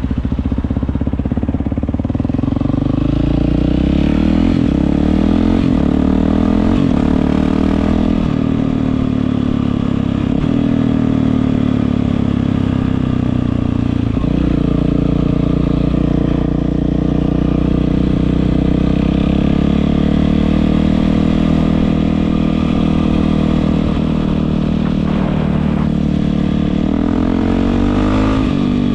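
Yamaha WR450F single-cylinder four-stroke dirt bike running through an Akrapovič exhaust, the engine pitch rising and falling repeatedly as it is revved and ridden.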